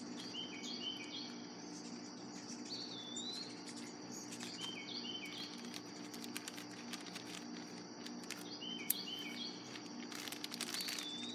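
Garden ambience: a steady insect trill with a songbird repeating short phrases of a few notes five times. A plastic tobacco pouch crinkles about six seconds in and again near the end. Under it all runs a low steady air-conditioner hum.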